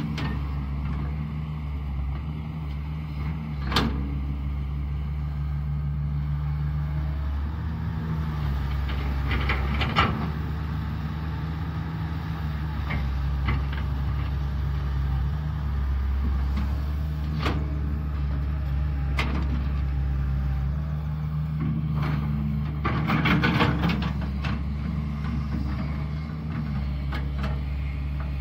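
Caterpillar 320B hydraulic excavator's diesel engine running steadily under digging load, its note shifting slightly as the hydraulics work. Now and then there are short clanks from the bucket and boom linkage, with a quick cluster of them near the end.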